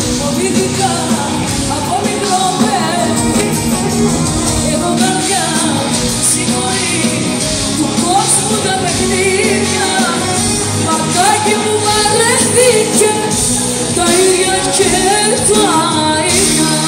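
A Greek popular song played live by a band with bouzoukis and keyboards, with a woman singing the melody into a microphone. The music is loud and continuous.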